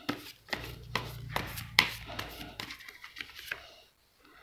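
Tarot cards handled and shuffled by hand: a run of quick, sharp card snaps and slides that dies away near the end.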